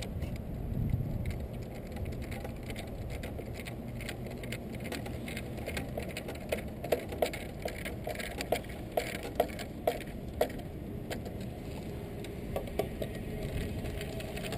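A wood screw being driven by hand with a screwdriver into a wooden bench slat, giving a run of short, irregular creaks as it turns, most of them in the middle of the stretch, over a steady low background rumble.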